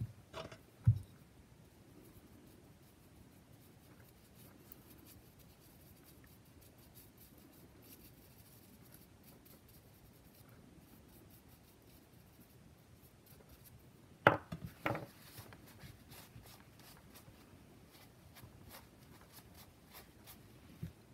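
Quiet scratching and rubbing as a paintbrush and a paper towel work over a polymer-clay-covered glass bottle. There is a dull knock about a second in, and a quick cluster of sharper knocks and clicks about fourteen seconds in as the bottle and tools are handled.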